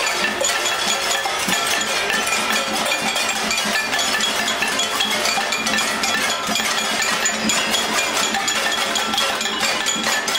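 Many pots and pans struck at once by a crowd marching together, a steady, dense metallic clanging with no pause.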